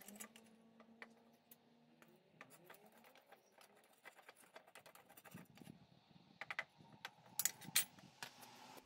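Faint, scattered ticks and clicks, with a quick cluster of louder ones about seven to eight seconds in. A low hum fades out about two seconds in.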